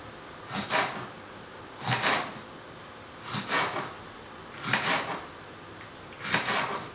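A knife slicing through a chili pepper onto a cutting board: five cuts in an even rhythm, about one every second and a half.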